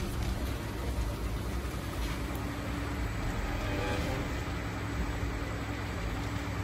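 Fire truck engines running steadily, a low, even rumble with a faint hum over it.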